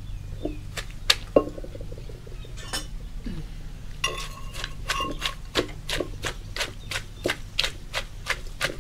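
Wooden pestle pounding shredded green papaya in a terracotta mortar for som tam: a few scattered knocks in the first second and a half, then steady pounding at about three strokes a second from about four seconds in.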